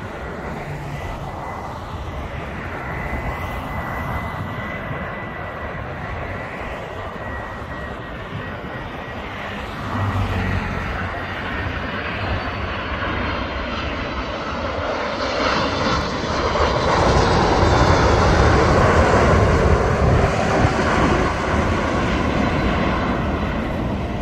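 Jet airliner passing, its engine noise growing louder to a peak a few seconds past the middle and then easing off, with a thin high whine in the first few seconds.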